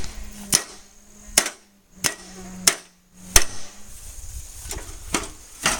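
A baseball bat repeatedly striking the metal parts of a microwave oven: about eight sharp hits at an uneven pace, the loudest a little past halfway.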